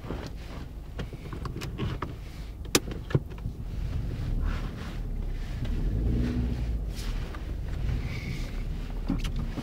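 Car engine running, heard from inside the cabin as a steady low rumble that grows louder about halfway through as the car begins to move off, with two sharp clicks around three seconds in.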